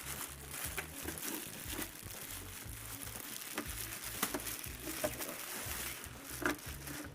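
Packaging crinkling and rustling as a drill press is unpacked and handled, with irregular light knocks and clicks.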